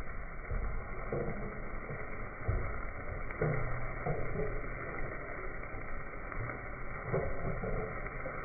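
Steady rushing noise of a gas wok burner at a street-food stall, with flames flaring high out of the wok.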